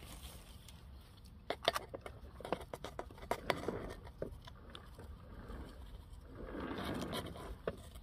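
Gritty potting mix poured from a plastic scoop into a ceramic pot, grains and pebbles pattering and ticking irregularly, with a longer soft pour near the end, as the pot is backfilled during repotting.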